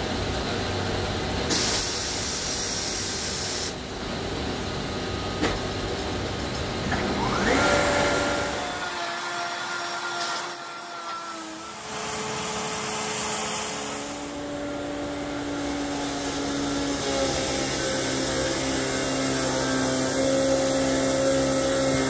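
Tire buffing machine running: its electric motor spins the tire while the rasp grinds the old tread rubber off, with the dust extractor drawing air. The first part is mostly a rough grinding noise; a whine rises about seven seconds in, and after that the machine runs with a steady hum.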